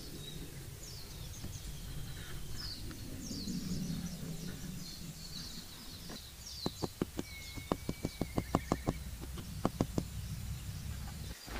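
Birds chirping throughout, then, about halfway through, a quick run of about a dozen sharp knocks, roughly four a second, that stops short and resumes briefly.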